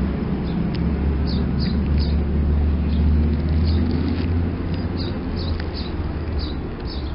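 A steady low engine rumble from a vehicle running nearby, easing off slightly near the end, with short, high chirps of small birds scattered over it.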